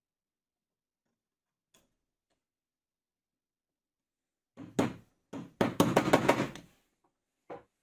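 A hammer tapping a threaded steel rod down through a bearing in a wooden jig block. A few sharp knocks come past the halfway point, then a quick run of taps with a metallic ring, and one more knock near the end.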